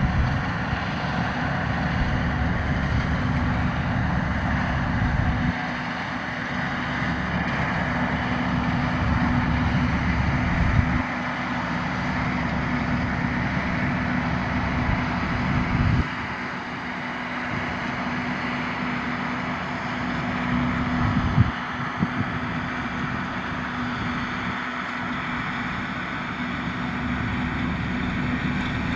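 Deutz-Fahr C7206 TS combine harvester running steadily under load while harvesting wheat, a constant hum over a low rumble. The rumble changes abruptly in strength several times, about every five seconds.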